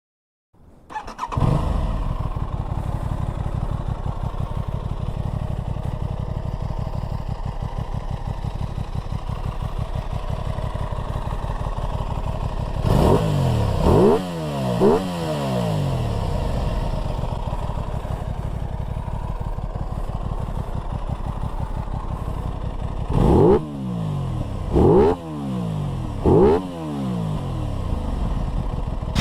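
Aprilia 660 parallel-twin motorcycle engine starting under a second in and settling into a steady idle. It is then blipped: three quick revs rising and falling in pitch around the middle, and three more near the end.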